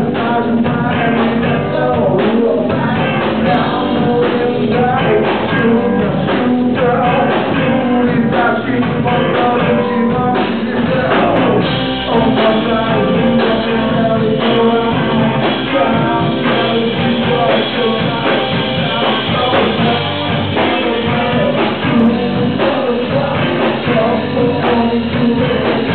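Live rock band playing: electric guitars and drum kit with a man singing lead vocals at the microphone.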